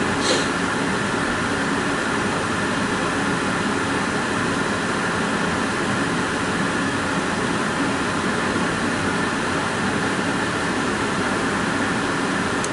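Dometic RV furnace blower running steadily with its sail switch disengaged, so the burner does not light and the furnace is heading for an error lockout. A brief click sounds just after the start.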